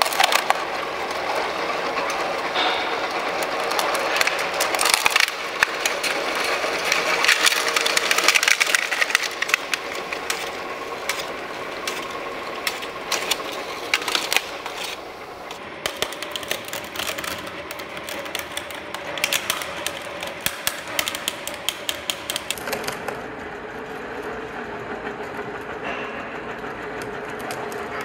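Irregular rapid clicking and clattering of small hard parts being handled and worked on.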